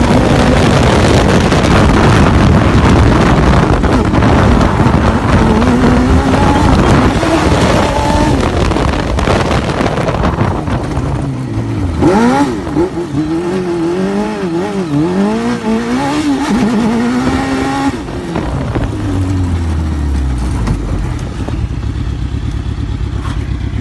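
Motor vehicle engine running hard under a heavy rushing noise. About halfway through the engine revs up and down again and again, then its pitch falls away as it slows and settles quieter near the end.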